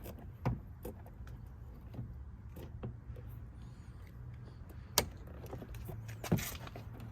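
Scattered plastic clicks and knocks from a car's interior door panel being handled and hung onto the door's lip, with one sharp knock about five seconds in.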